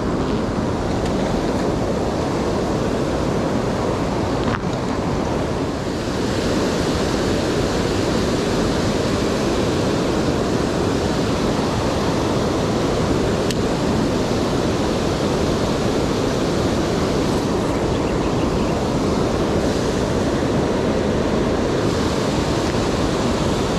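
Steady rush of water pouring over a river weir, a loud, even noise that does not let up.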